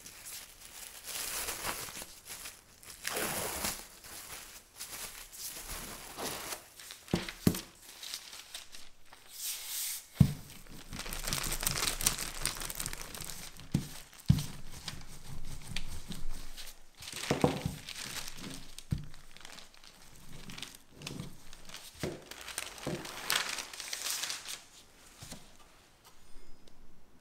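Plastic cling film and parchment paper crinkling and rustling as chilled tart dough is unwrapped and rolled out under paper with a wooden rolling pin, with a few sharp knocks, the strongest about ten and fourteen seconds in.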